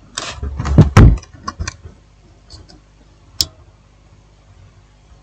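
Clicks and knocks of small plastic phone parts being handled and set down on a workbench, a quick clatter in the first two seconds with the loudest knock about a second in, then one sharp click past the midway point.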